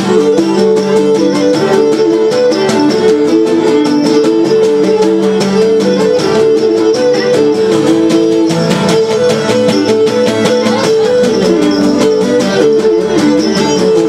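Cretan lyra bowing the melody over two Cretan laoutos picking a steady driving rhythm, an instrumental passage between sung verses of a traditional Cretan song.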